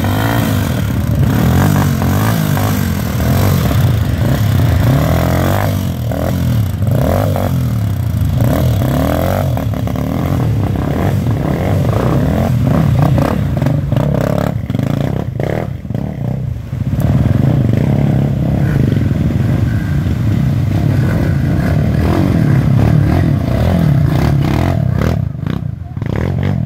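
Dirt bike engines running and revving up and down as the bikes pass close by, the pitch rising and falling over and over.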